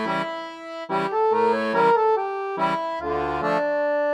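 Instrumental music: a jaunty tune of held melody notes over low bass notes alternating with short chords in a steady beat.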